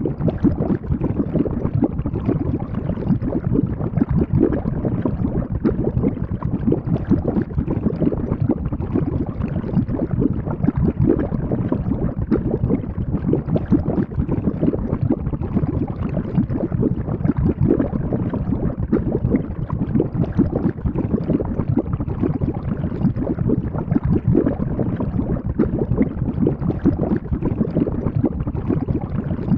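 Cauldron bubbling and boiling: a dense, continuous stream of low bubbling pops.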